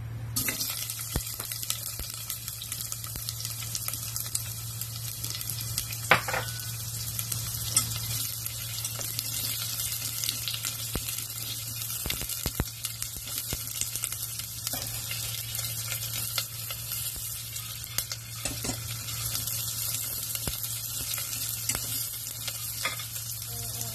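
Chopped onion sizzling in hot oil in a small stainless steel saucepan, the sizzle starting about half a second in as the pieces go in. Chopsticks click against the pan now and then as the onion is stirred, over a steady low hum.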